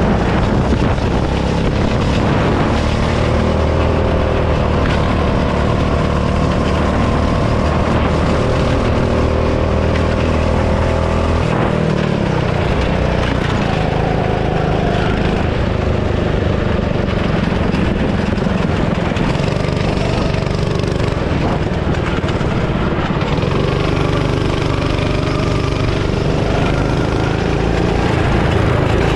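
Go-kart's small engine running at speed, heard from on board the kart. Its note holds steady along the straight, then changes about twelve seconds in and shifts up and down as the throttle is lifted and reapplied through the corners.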